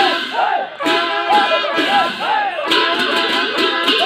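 Upbeat dance music with a quick steady beat and a melody that swoops up and down in pitch.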